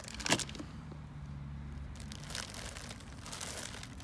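Taped cardboard box being torn open, with a sharp rip about a third of a second in, then rustling and crinkling as the plastic packing inside is pulled aside.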